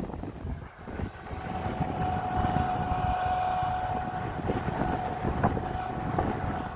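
Large harvest machinery running: a low engine rumble with a steady high whine that sets in about a second in.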